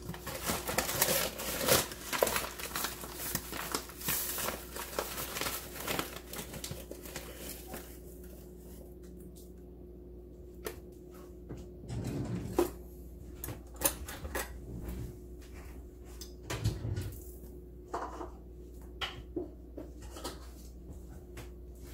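Yellow cornmeal being scooped and measured into a measuring cup by hand: a rapid run of rattling, scraping clicks for the first several seconds, then scattered taps and knocks of the cup and bag, with two dull thumps in the second half.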